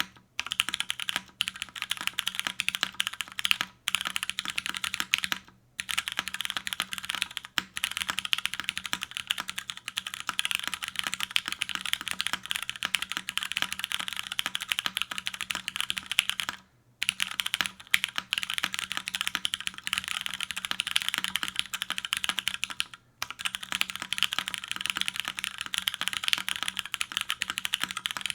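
Continuous fast typing on a custom mechanical keyboard: tactile Cherry MX Brown switches lubed with 205g0 and filmed, a carbon-fibre plate, top mount and GMK keycaps. The typing pauses briefly three times, about six seconds in, midway and about five seconds from the end.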